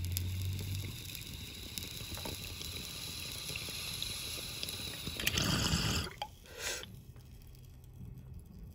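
Water bubbling steadily in a glass bong as smoke is drawn through it, then a louder brief rush of air and water about five seconds in as the bowl is pulled to clear the chamber.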